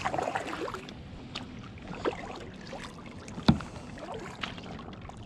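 Kayak paddle strokes through shallow water: the blade dipping, splashing and dripping, with a few sharp knocks, the loudest about three and a half seconds in.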